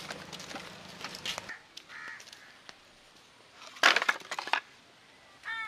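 Light footsteps and knocks on a wooden plank footbridge over a low hum. About four seconds in comes a loud crunching clatter as a basket of mud is handled among dry split bamboo pieces, and near the end a short bird call.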